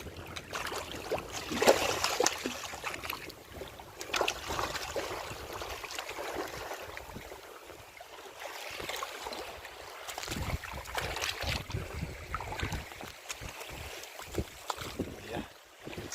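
Water splashing and sloshing at the water's edge, in irregular bursts with the loudest about two seconds in. Wind rumbles on the microphone in the second half.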